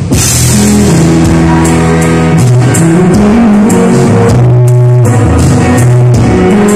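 Live rock band playing loudly through a PA: electric guitars, bass and drum kit with cymbals, the bass notes changing every half second or so.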